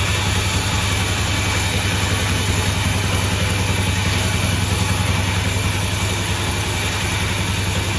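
Sawmill machinery running steadily: the mill's engine drone, even and unchanging in pitch.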